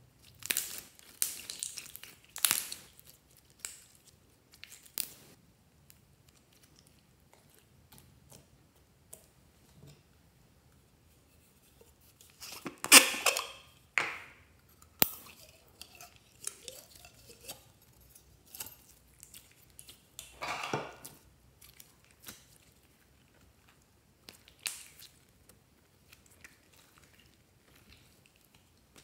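Slime being squished, stretched and pulled by hand, giving irregular sticky crackles and pops with quiet gaps between; the loudest bursts come about a third and two thirds of the way through.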